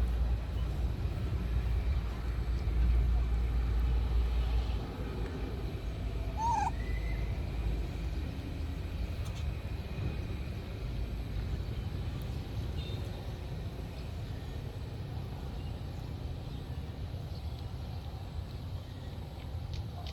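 An animal gives one short, high call about six and a half seconds in, over a steady low rumble that eases after about five seconds.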